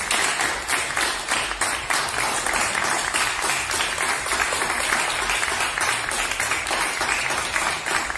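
A group of people applauding, dense steady clapping.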